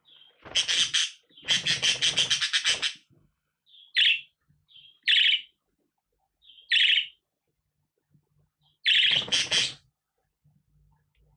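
Budgerigar chattering: a short warbling burst and then a longer one in the first few seconds, then single short chirps about a second apart, and another warbling burst near the end.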